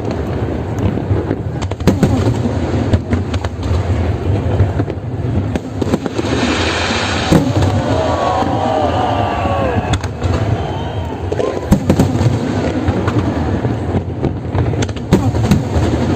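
Fireworks display: continuous low booming with rapid sharp cracks and crackle, and a rushing hiss about six seconds in.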